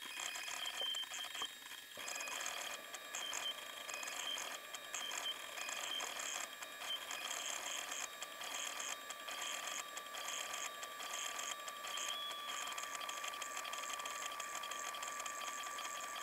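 Prusa Mini+ filament 3D printer running at 20x timelapse speed: a fast, high-pitched chirping and whirring from its stepper motors and cooling fan. A steady high tone joins about two seconds in.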